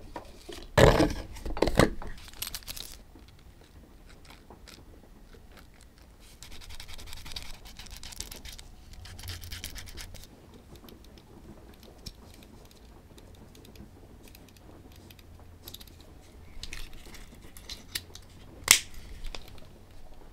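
Leather handcraft sounds: loud scratchy handling noises about a second in. Then a wooden burnishing slicker is rubbed back and forth along the edge of a small leather piece, giving a rough rubbing hiss for several seconds in the middle. A single sharp click comes near the end.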